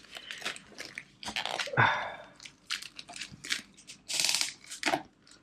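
A cardboard keyboard box being opened and handled by hand: a series of short scrapes, rubs and taps of fingers and cardboard, with a longer sliding rub about two seconds in and a louder scrape a little past four seconds.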